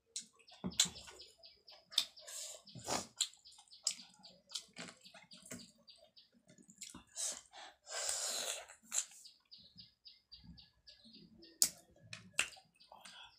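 Close-mic eating sounds: wet chewing, lip smacks and fingers mixing rice and curry on the tray, with a bird chirping over and over in the background, fastest near the end.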